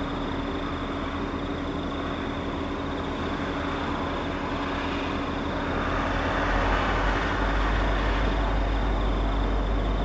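EMD-engined G-class diesel locomotive G521 running in the distance: a steady low engine sound with a constant hum, growing louder about six seconds in as it works closer.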